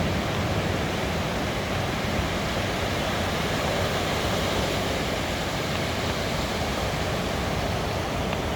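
Sea waves rolling onto a beach: a steady rush of surf with a low rumble underneath.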